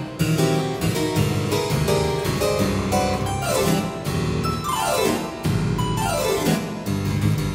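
Two-manual harpsichord playing fast, rhythmic music with dense chords in the bass. From about three seconds in come three quick descending runs, one after another.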